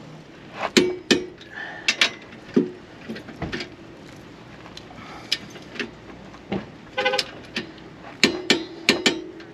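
Ratcheting torque wrench tightening the U-bolt nuts on a trailer's leaf-spring axle mount toward 70 foot-pounds: irregular metallic clicks and clanks in bursts, with a few short squeaks as the nuts draw tight.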